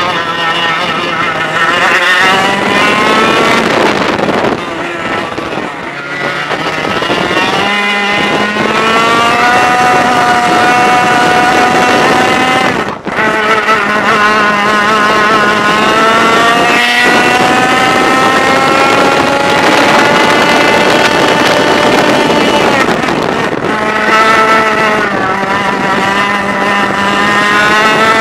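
100cc two-stroke kart engine running at full throttle, heard from on board. Its pitch climbs steadily along the straights and drops back sharply when the throttle is lifted for corners, most clearly about 13 and 23 seconds in.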